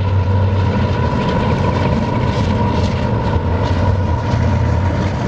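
A train running on the tracks below, heard from up high: a steady rumble with a constant high tone through it and faint regular clicks.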